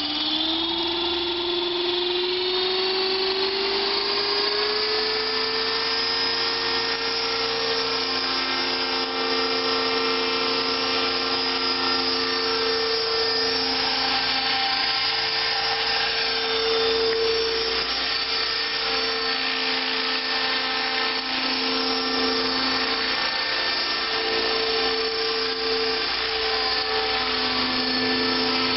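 Align T-Rex 600 electric RC helicopter in an MD 500 scale fuselage: its motor and rotor whine rises in pitch over the first few seconds as the rotor spools up, then holds a steady high whine as it flies.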